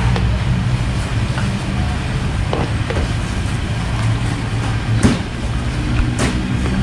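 A metal spatula scraping and clinking against a large steel wok a handful of times while coconut cream and fermented soybean paste are stirred, over a steady low rumble.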